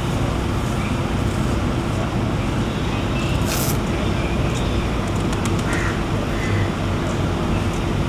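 Steady road traffic noise, an even rumble with a faint constant hum underneath.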